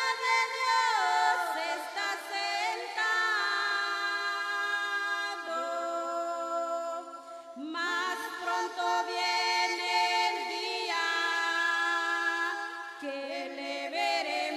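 Two women singing a hymn a cappella, in long held notes with no instruments, with a brief pause for breath between phrases about seven seconds in.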